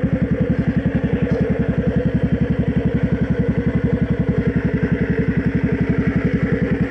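ATV engine idling steadily with a rapid, even pulse.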